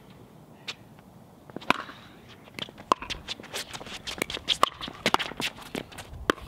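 Pickleball rally: paddles strike the hollow plastic ball with sharp pocks, single hits about a second apart at first, then a quick run of hits and court shoe steps in the second half as the players trade shots at the net.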